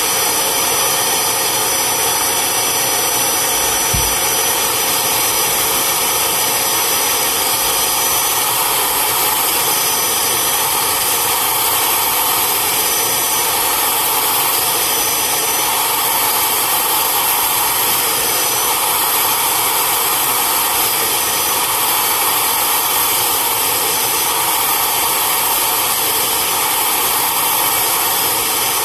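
Vacuum extractor motor running steadily at full power, a loud, unchanging rushing whir, with a brief low thud about four seconds in.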